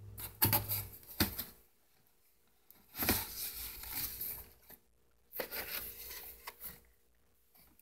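Cardboard scraping and rubbing as a boxed action figure is slid out from between others in a cardboard shipping carton, in three bursts, the first with a couple of sharp knocks.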